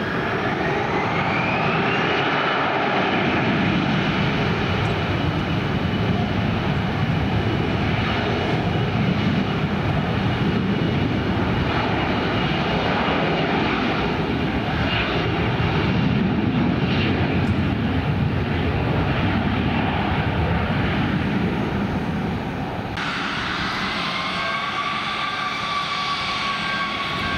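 Airliner engines running loud, with a high whine that rises over the first couple of seconds and then holds steady over a broad rush of engine noise. Near the end the sound changes abruptly to another aircraft's engines, with lower steady whines.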